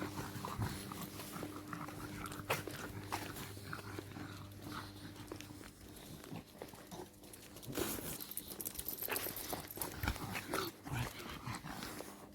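A dog close by, moving about with rustling and scattered small clicks, over a faint steady hum.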